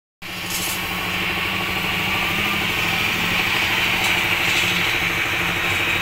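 A machine engine running steadily at a constant speed, with a steady high whine over its hum.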